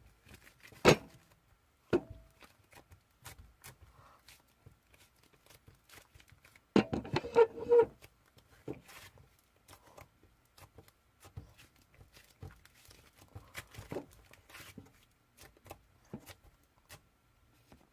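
Scattered small clicks and knocks of objects being handled in a small room, with a louder burst of clattering about seven seconds in.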